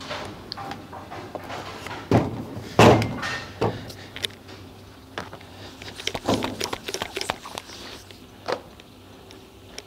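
Bowling alley noise: two heavy thuds a little over two seconds in, then a run of lighter clattering knocks, thickest around six to seven seconds in, over a low steady room hum.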